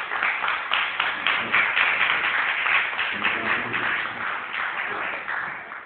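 Audience applauding, many hands clapping at once, fading near the end.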